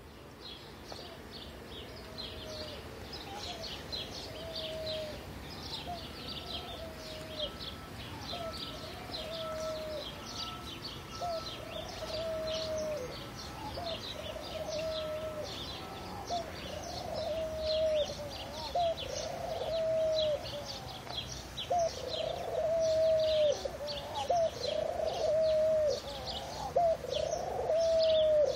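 Pigeon cooing over and over in short coos that dip in pitch, growing louder toward the end. A rapid high-pitched chirping runs underneath throughout.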